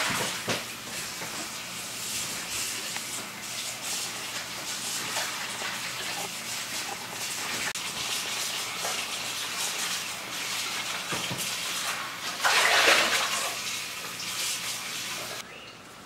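Water running and splashing steadily, swelling louder about twelve and a half seconds in and dropping away just before the end.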